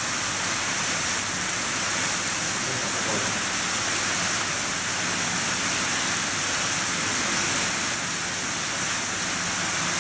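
Conventional-type fire sprinkler head discharging water: a steady hiss of spray.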